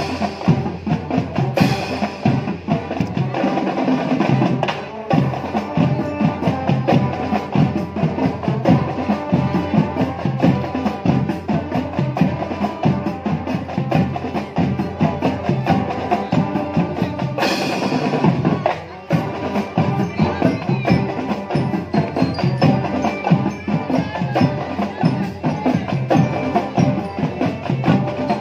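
School marching band playing, with the percussion to the fore in a dense, fast, steady beat. The music dips briefly about eighteen seconds in, then carries on.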